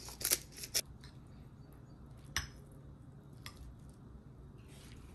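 Cutlery tapping against a dish: a handful of light, sharp clicks spread through a quiet stretch, the first ones close together and the rest a second or more apart.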